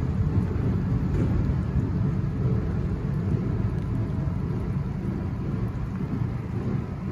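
Low, steady rumble of a diesel switcher locomotive moving off down the yard track, slowly fading as it gets farther away.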